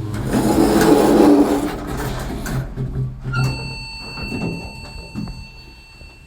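Lift chime: a bell-like electronic tone sounds about three seconds in and fades slowly, after a couple of seconds of rumbling noise.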